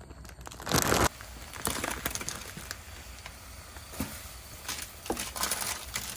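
A plastic instant-noodle packet crinkling briefly about a second in, then a steady hiss from a pot of water heating on a gas burner, with a few soft clicks and knocks.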